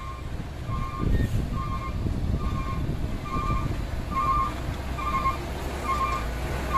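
A vehicle's reversing alarm beeping at an even pace, a little more than once a second, over the low running of diesel dump truck engines as a Hino Ranger dump truck drives up close.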